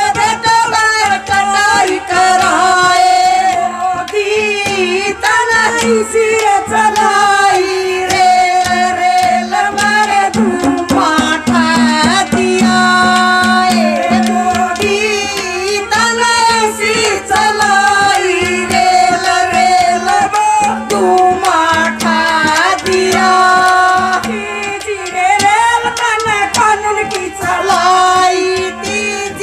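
A woman singing a Haryanvi folk song into a microphone, amplified over a PA loudspeaker, with a hand drum keeping a steady beat.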